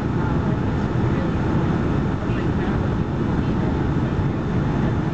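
Steady cabin noise inside a Boeing 757-200 airliner on approach: engine and airflow noise, heaviest in the low range, with flaps extended.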